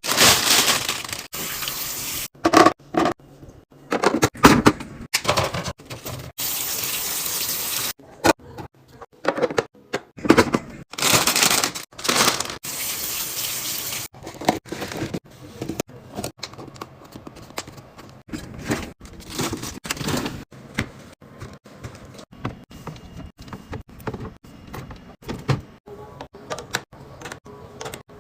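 Water running or pouring in three stretches of a couple of seconds each, among many short clicks and knocks of containers, lids and bottles being handled.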